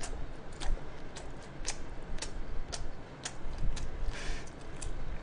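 Sharp clicks at about two a second, fairly evenly spaced, with a short soft hiss about four seconds in.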